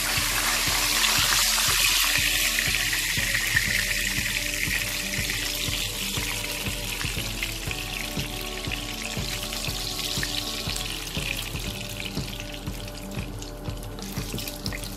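Climbing perch (koi fish) frying in hot mustard oil in a wok, a steady sizzle that thins out as the fish are lifted out of the oil.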